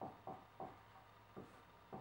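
Dry-erase marker squeaking on a whiteboard as letters and numbers are written: about five short, faint strokes, each dropping slightly in pitch.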